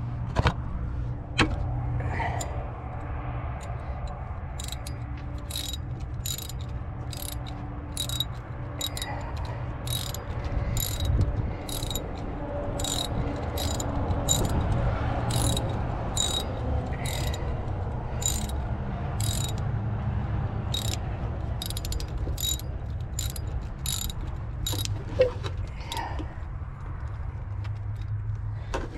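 Hand socket ratchet clicking in an even rhythm, about two clicks a second, as the thermostat housing bolts are run down. A low steady hum runs underneath.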